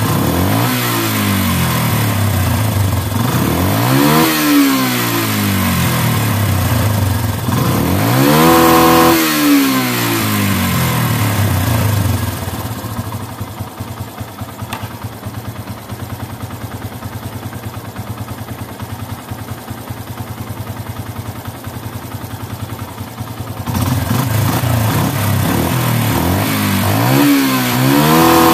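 Yamaha Byson's single-cylinder carburetted engine revved in several short blips, dropping to a quieter, steady idle for about ten seconds in the middle, then running louder and revving again near the end. The carburettor's air screw is being adjusted to cure backfiring and rich running.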